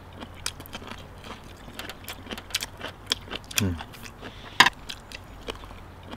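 Close-up eating sounds of chewy stir-fried chicken gizzards: many small sharp clicks and smacks of chewing and metal chopsticks, with a brief murmured voice sound about three and a half seconds in and a louder click a second later.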